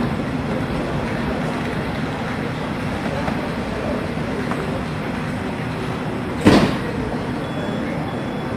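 Double-deck regional express train hauled by a class 111 electric locomotive rolling away along the platform, a steady rumble of wheels on track. A little past the middle comes one short, loud bang.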